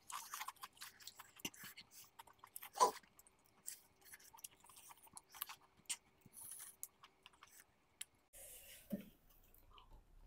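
Close-miked eating: irregular chewing with crisp crunches and wet mouth clicks as fast food is bitten and chewed.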